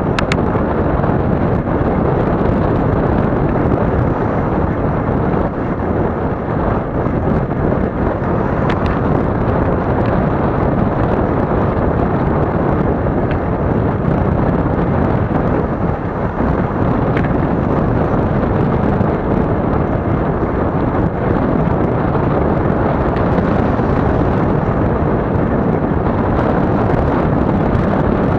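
Steady wind rumble on the microphone of a camera moving along a road, unbroken and even.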